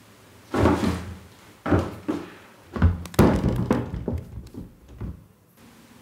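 Foley artist's bumps and thumps acted out for a drunk man stumbling as he tries to sit down in a bathroom: a string of about seven heavy knocks and thuds over six seconds, bunched and loudest about three to four seconds in.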